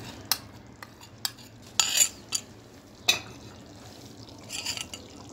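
Scattered knocks and scrapes of a bowl and utensil against an aluminium cooking pot as cream is tipped into simmering halwa, with louder scrapes about two and three seconds in.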